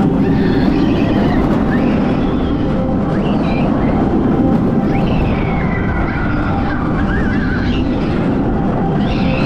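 Phoenix Rising inverted roller coaster train running through its course: a loud, steady rush of wind and wheel rumble on the track, with wavering high sounds over it.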